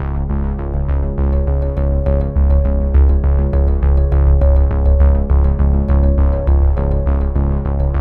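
Background music: synthesizer and keyboard tones over a strong bass, with quick, even note attacks.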